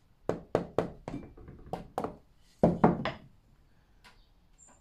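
Sharp wooden knocks, mostly in quick pairs: glued pallet-wood pieces being tapped and pressed down into place on a plywood backing. The loudest pair comes a little before the three-second mark, and a last single knock follows about a second later.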